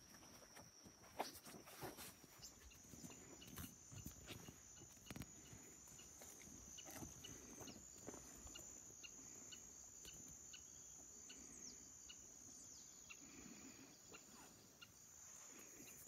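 Near silence outdoors: a faint, steady high-pitched insect drone, with scattered soft ticks and rustles.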